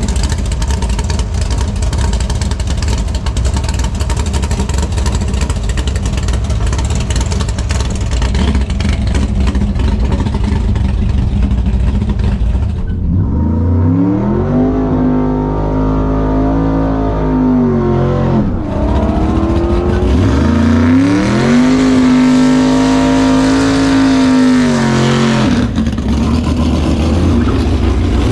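Drag-racing Ford Fairmont engine with a rough, lumpy idle. About 13 seconds in it is revved up and held at high rpm for about five seconds, then drops back. It is revved and held high a second time from about 21 to 25 seconds, then falls back to idle.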